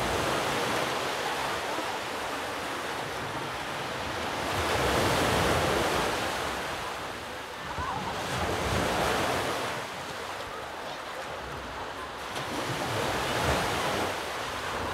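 Sea waves breaking on the shore, the wash swelling and easing every four to five seconds, with wind rumbling on the microphone.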